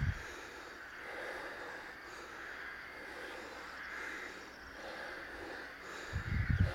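Outdoor ambience: a steady faint hiss, then low rumbling buffeting on the microphone starting about six seconds in.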